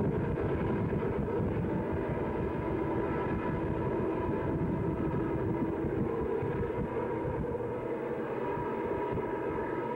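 Distant Southern Pacific diesel locomotives working upgrade with a long freight train: a steady engine drone with a few held tones over a low rumble.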